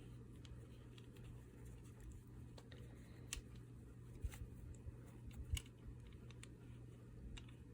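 Faint, scattered clicks and taps of a small product package being handled and opened, over a low steady hum.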